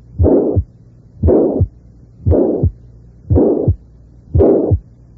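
Recorded heart sounds with the systolic murmur of mitral regurgitation, about one beat a second, five beats. Each beat opens with the first heart sound, a murmur fills the whole of systole, and it runs right up to the second heart sound: a holosystolic murmur.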